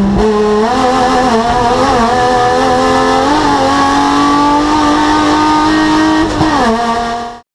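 Chevrolet Chevy touring race car's engine heard from inside the cockpit, running hard at high revs with a fairly steady, slightly wavering pitch. The pitch dips briefly at the start and again near the end, and the sound cuts off suddenly just before the end.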